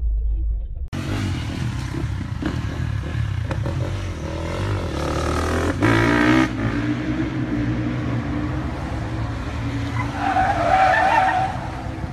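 Car engine revving hard, climbing in pitch and cutting off about six seconds in, then tyres squealing for a second or two about ten seconds in as a police car skids through a turn.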